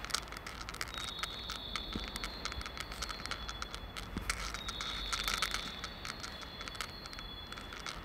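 Station platform sounds: rapid clicking and rattling throughout, with a high steady electronic tone that starts about a second in, drops away, and returns for a couple of seconds around the middle, over a low hum.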